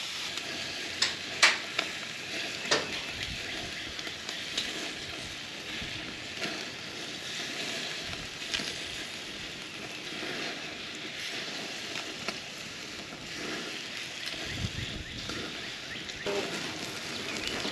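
Marinated chicken sizzling steadily on the grate of a very hot charcoal grill. A few sharp metal clicks from the tongs come in the first three seconds as the last pieces go on.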